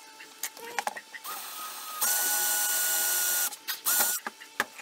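Craftsman 19.2-volt cordless drill boring a pilot hole into a wooden rifle stock for a sling swivel stud. The motor spins up to a steady whine, runs for about a second and a half, stops, then gives one short second burst.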